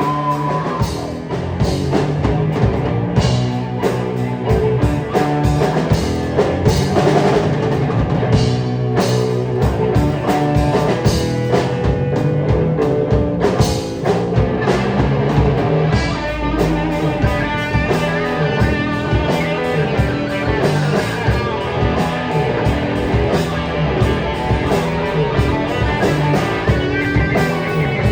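Rock band playing live: distorted electric guitar over a drum kit with steady beats, no vocals.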